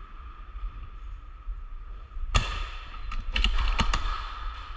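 Airsoft guns firing in an indoor close-quarters field: one sharp pop about halfway through, then a quick run of four or five snappy shots.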